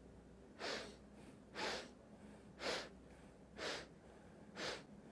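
A person taking short, sharp sniffs in through the nose, one a second, five in a row: the quick inhales of a rhythmic breathing exercise, with the exhales not heard.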